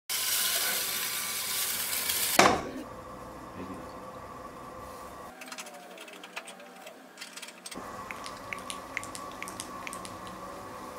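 Loud rushing hiss that ends in a sharp hit about two and a half seconds in. After it, an electric pottery wheel runs with a steady hum while hands work wet clay on the wheel head, giving small scattered clicks and squelches.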